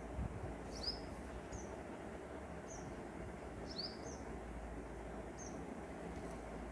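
Short, high chirps of a small bird, repeated about once a second and sometimes in quick pairs, over a steady low background hum. A soft bump near the start.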